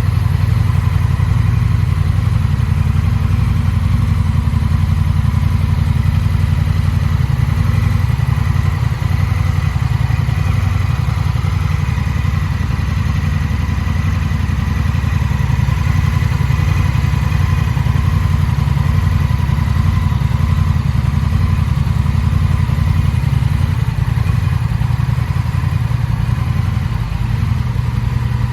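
Honda Rebel 1100 DCT's 1084 cc parallel-twin idling steadily through an aftermarket Moriwaki silencer.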